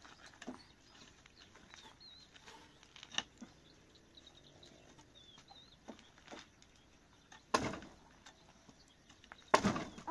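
Small birds chirping in the background, with a few scattered knocks and two louder thumps in the second half, the last near the end.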